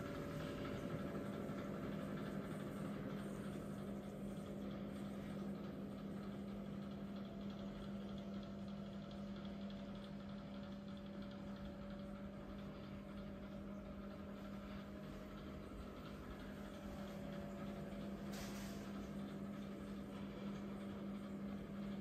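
Quiet, steady mechanical hum of room machinery, holding one low tone with a fainter higher tone above it. A brief soft hiss comes about eighteen seconds in.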